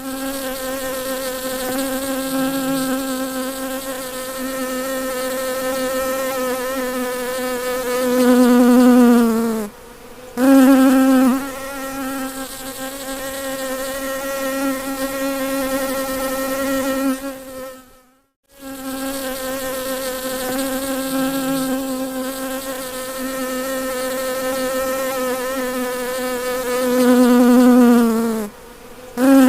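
A bumblebee buzzing in one steady, low, pitched drone. It swells and dips in pitch as it stops briefly about a third of the way in and again near the end, with a short silent break around the middle.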